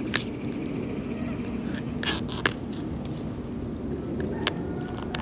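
Fillet knife working through a fish: a few sharp clicks and scrapes against bone, over a steady low hum.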